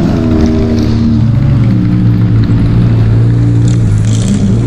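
Off-road vehicle engine running steadily under load, loud and close, holding a nearly constant low pitch.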